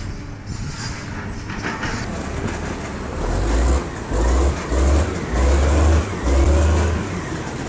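A heavy vehicle's engine running, with a run of five deep low surges in the second half.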